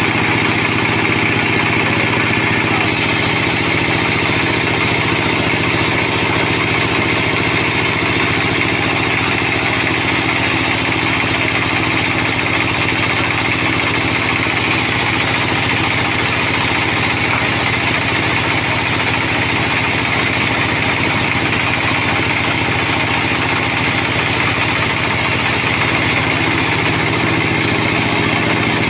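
Band sawmill running steadily, its blade ripping through a sonokeling (Indonesian rosewood) beam.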